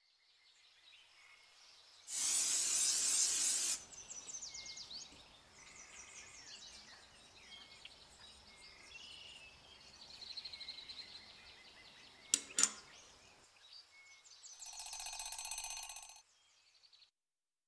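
Quiet kitchen handling sounds: a brief rasp about two seconds in as a bamboo lid is worked off a metal tin, then soft scrapes and two sharp clicks. Faint bird chirps sound in the background, and a short ringing tone comes near the end.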